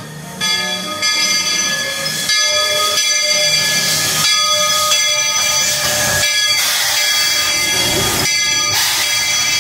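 Steam locomotive hissing loudly and steadily with escaping steam as it draws into the station, starting suddenly about half a second in.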